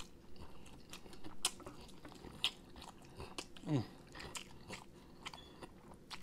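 Close-mic eating of sauced whole chicken wings: wet chewing and biting, with scattered sharp crunchy clicks.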